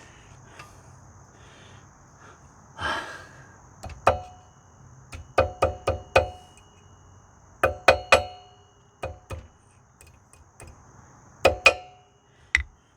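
Hand tools clinking and tapping against the ATV's steel parts in small clusters of two to four sharp strikes, each ringing briefly like struck metal, while a part is worked into line.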